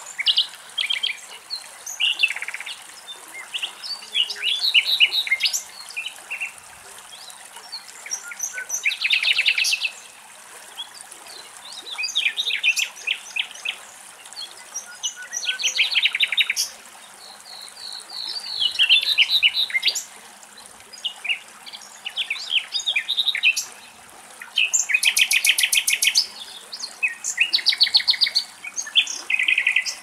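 Common nightingale singing: a string of varied phrases, each a second or two long with short pauses between them, built of fast repeated notes and rattling trills.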